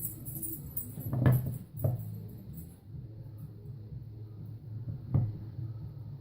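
Hard objects knocking as they are handled or set down in a workshop: a loud knock about a second in, a lighter one just after, and another near the end, over a steady low hum.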